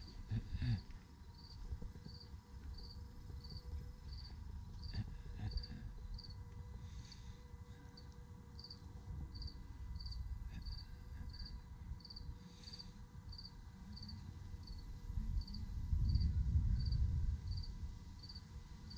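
A cricket chirping steadily, about two short high chirps a second, over a low rumble that grows louder near the end.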